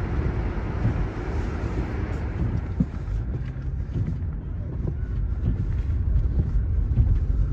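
Wind buffeting the microphone, a ragged low rumble, with a faint hiss that fades after a few seconds.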